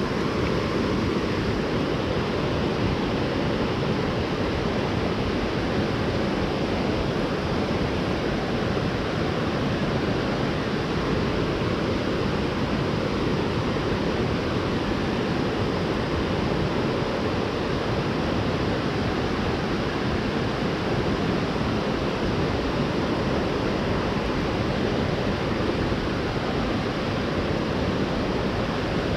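Rushing water of a mountain stream, a steady unbroken roar of flowing current.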